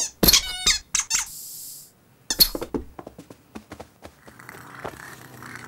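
Cartoon kitten's high, squeaky mews, several quick calls in the first second, followed by a short hiss-like breath. Then comes a run of light, soft taps as the kitten clambers onto the bigger cat's back.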